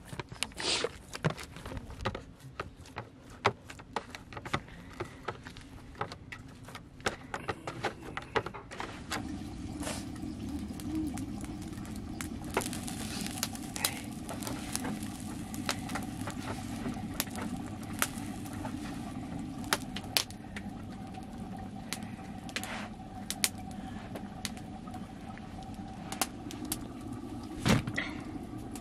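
Hands kneading sticky bread dough in a bowl, with soft slaps and sharp clicks. From about nine seconds in, a wood fire burns with scattered crackles and pops over a steady low rumble.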